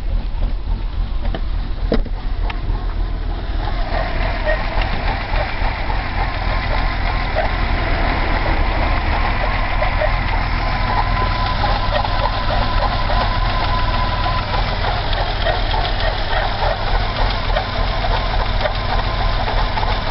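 BMW E30 320i's M20B20 straight-six, cold, idling roughly with a squeaking noise that the owner is trying to trace; a thin steady squeak is clearest for a few seconds around the middle. For the first few seconds the car is driving along, heard from inside the cabin.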